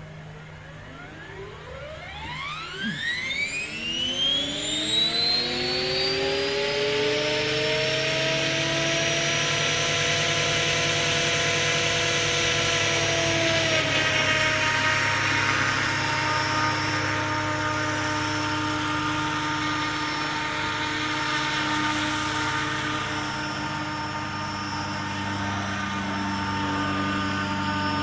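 Radio-controlled 500-size scale BO-105 helicopter with a four-blade main rotor spooling up: a whine rising steadily in pitch over about five seconds, then holding at a steady high pitch with rotor noise, settling slightly lower about halfway through as it lifts off and flies away.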